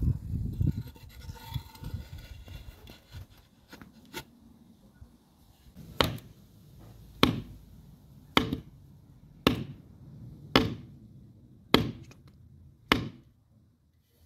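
Wooden pick handle and iron head rubbing and scraping as the head is worked onto the handle. Then seven sharp knocks about a second apart as the handle is struck down on concrete to seat the head.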